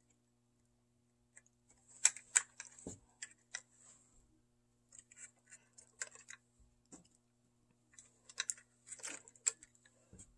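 Light clicks and taps of a model locomotive being handled and turned over in the hand, coming in scattered clusters.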